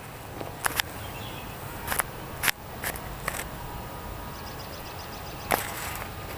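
Several short, sharp clicks or taps at uneven intervals, the loudest about two and a half seconds in and again near the end, over a steady low outdoor rumble.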